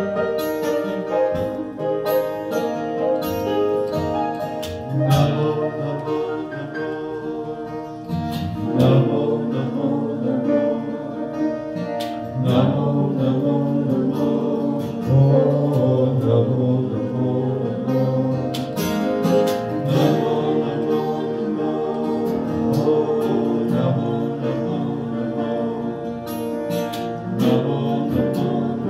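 Several voices singing a slow devotional song together, accompanied by strummed acoustic guitar and keyboard.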